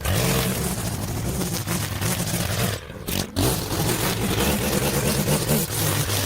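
Small gasoline engine of lawn equipment running steadily under load. The sound dips briefly about three seconds in.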